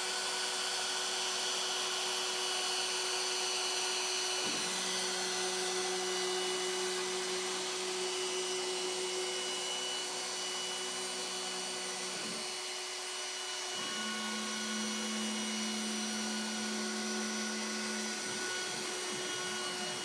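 Torchmate 2x4 CNC router cutting MDF: the router spindle runs steadily with a constant whine over a rushing hiss. A lower motor hum comes and goes and changes pitch several times as the machine moves from one cut to the next.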